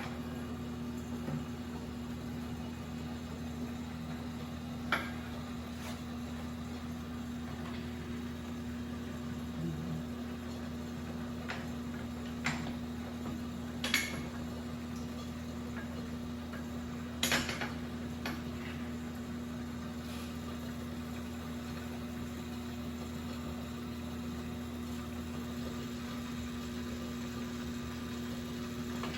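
A steady machine hum of shop equipment, with a few short clicks and knocks of parts being handled, the loudest a small cluster about two-thirds of the way through.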